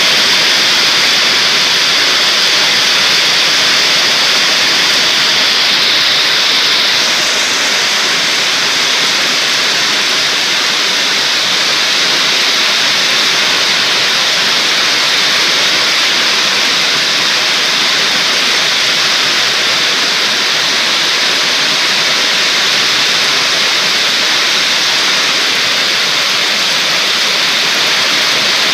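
Heavy storm rain pouring down in a loud, steady hiss, easing very slightly about seven seconds in.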